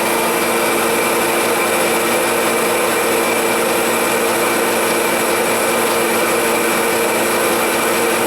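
Sears forced-air torpedo heater running on a test run after a new spark plug is fitted: its blower fan makes a steady loud rush of air with a constant motor hum.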